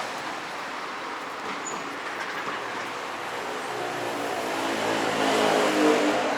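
A vehicle passing close by: a pitched motor hum grows louder through the second half, peaks near the end and starts to fade, over a steady wash of street noise.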